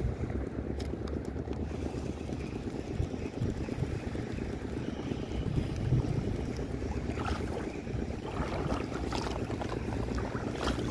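Steady wind noise on the microphone over gently lapping shallow seawater, with a few faint ticks.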